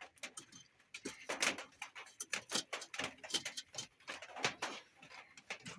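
Irregular clicks and knocks, several a second, as of hard objects being handled.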